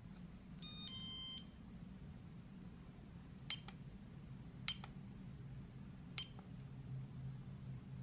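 Merbe handheld facial beauty device sounding a short chime of several tones about a second in, then beeping three times as its buttons are pressed to set the intensity, each beep a quick double.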